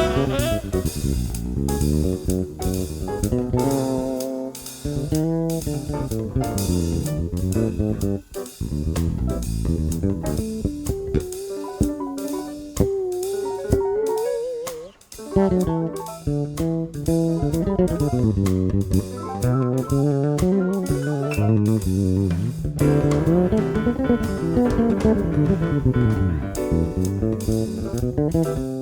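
Background music: a band with guitar, bass guitar and drum kit playing with a steady beat.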